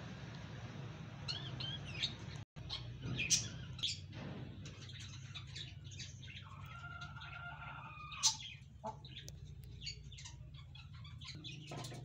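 Small caged parrots, budgerigars and cockatiels, chirping in many short, high calls, loudest about three and eight seconds in, over a steady low hum.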